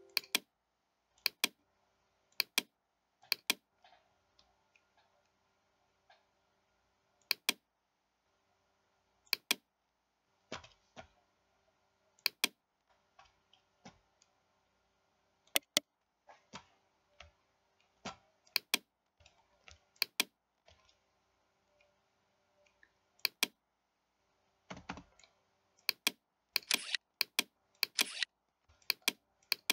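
Computer mouse buttons clicking at irregular intervals, singly and in quick double-clicks, over a faint steady hum. The clicks come thicker in the last few seconds.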